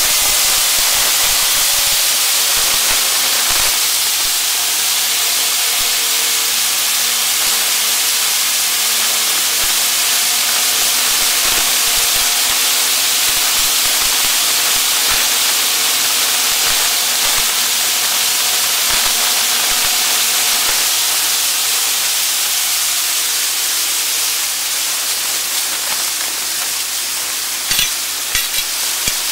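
Rushing wind and spray on a lifeboat RIB running at speed across open water, a steady loud hiss, with the boat's engine hum faint beneath it. A few sharp knocks near the end.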